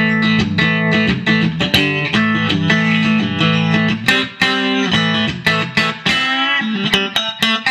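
Fender Stratocaster electric guitar, a 1957 Super Relic, played through an amp: a steady run of picked notes and chords with sharp attacks. Lower notes drop out about six and a half seconds in, leaving higher notes.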